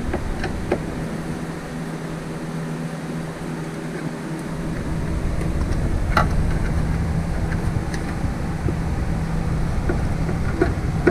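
Steady low mechanical hum, with a few light clicks and taps from tools on the tail light's mounting screws: near the start, about halfway, and near the end.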